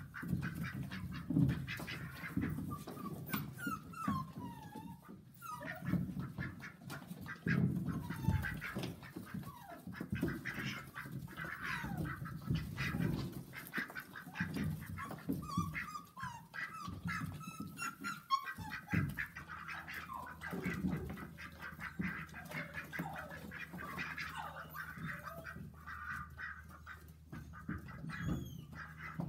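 Ducks quacking and calling over and over while border collie puppies chase them, with puppy yips and scuffling in the straw.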